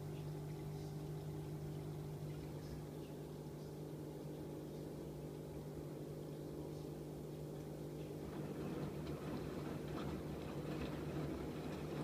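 AEG Öko-Lavamat 88840 front-loading washing machine filling with water during its fabric-softener rinse: a steady hum with water running into the drum. About eight seconds in the drum starts turning and the water and laundry slosh.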